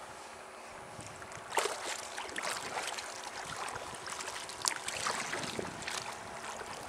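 Small waves splashing and slapping against a kayak hull in irregular bursts, over a steady hiss of wind on the water.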